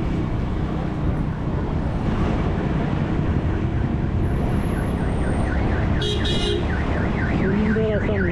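Wind and road noise from a moving motorcycle. About five seconds in, an electronic car-alarm-style siren starts up, warbling rapidly up and down about three times a second.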